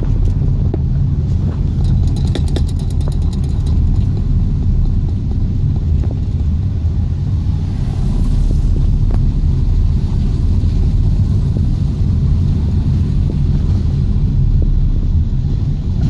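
Car driving along a road, heard from inside the car: a steady low rumble of engine, tyres and air, with a brief run of fast faint ticks about two seconds in.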